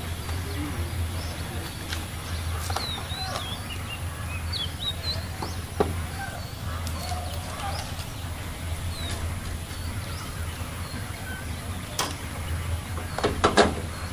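Wild birds chirping and calling in short rising and falling notes over a steady low hum. A few sharp knocks stand out, with a quick cluster of them near the end as the loudest sound.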